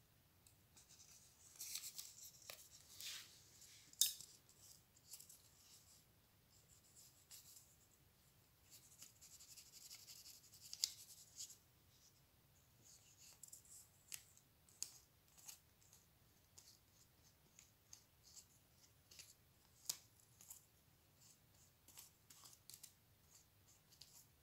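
Faint, irregular rustling and crinkling of a sheet of paper being handled, with scattered small ticks.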